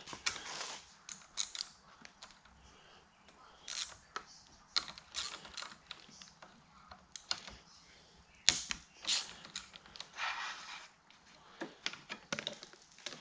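Hand tools and handlebar parts being worked on a dirt bike: scattered clicks and metal knocks, with a few short rasping stretches.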